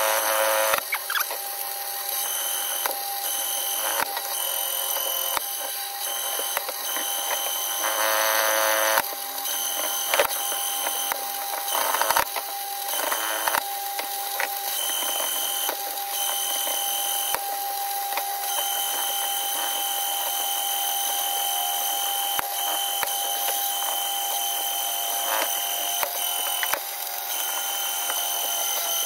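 Electric cable-stripping machine running with a steady whine as single-core aluminium-armoured cable is fed through it, with occasional sharp knocks.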